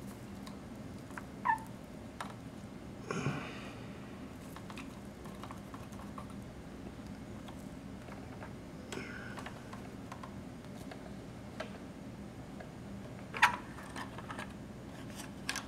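Small clicks and taps from hand soldering on a circuit board, with the iron, solder wire and board being handled, over a steady low hum. A short squeak comes about a second and a half in and a brief rustle about three seconds in. The sharpest click, near the end, comes as the board is taken in hand.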